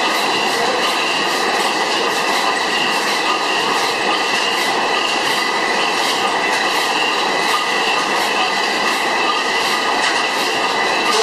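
300 hp Miller Improved stationary gas engine running at speed, a steady mechanical clatter with faint regular ticking and a steady high whine over it.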